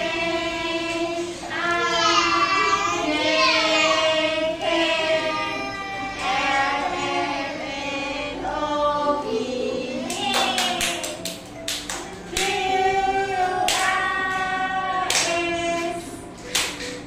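A children's song playing: several voices singing a melody over music, with a few sharp percussive hits about two-thirds of the way through and again near the end.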